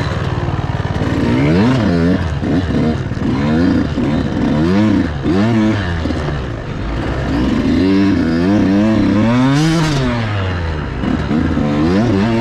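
KTM 85cc two-stroke dirt bike engine revving up and down over and over as the throttle is worked and gears are changed, pitch climbing and dropping about once a second.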